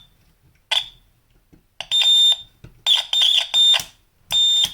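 Continuity tester beeping in short, irregular high-pitched beeps as its probes are touched to the C64 power switch contacts. Each beep marks a closed, conducting connection.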